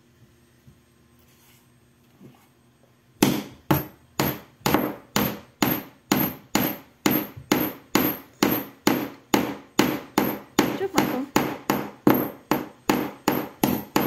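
A small claw hammer driving a nail into a thin wooden board. After about three seconds of quiet it strikes in a quick, even run of about two blows a second.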